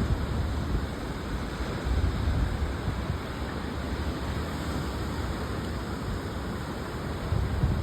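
Ocean surf on a beach, with wind buffeting the microphone in gusts, strongest about two seconds in and again near the end. The surf is typhoon swell.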